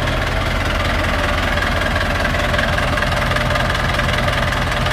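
Chevrolet D20 pickup's Perkins four-cylinder turbo diesel engine running steadily, a diesel sound with no revving.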